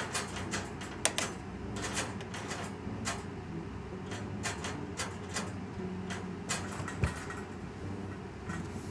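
Irregular light clicks and crackles, with a dull thump about seven seconds in, over a steady low hum.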